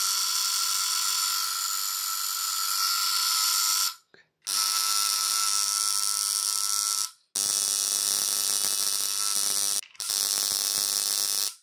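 Induction coil running: its mechanical interrupter buzzing steadily, with a hiss of sparks across the spark gap. It stops abruptly and starts again three times: for about half a second around 4 s and 7 s in, very briefly near 10 s, and again at the very end.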